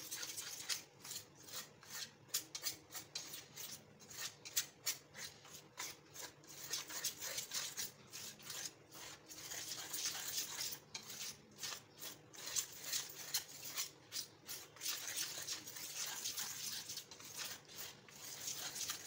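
Coil-spring wire whisk stirring dry flour in a stainless steel bowl: quick, scratchy scraping strokes of wire against the metal and through the flour, several a second.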